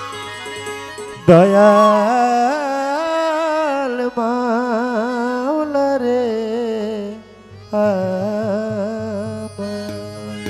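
Violin playing a Baul folk melody with sliding, wavering ornamented notes, coming in loudly about a second in and pausing briefly near the end, over a low steady drone.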